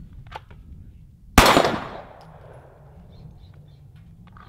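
A single pistol shot about a second and a half in, its echo dying away over about half a second.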